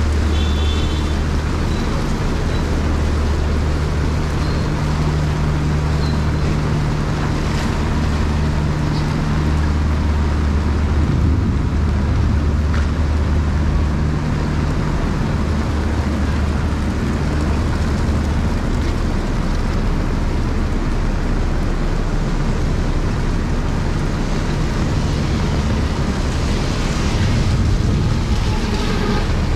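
Heavy rain falling steadily on a road, with a steady low engine hum underneath. Near the end an auto-rickshaw's engine comes closer and the sound swells briefly.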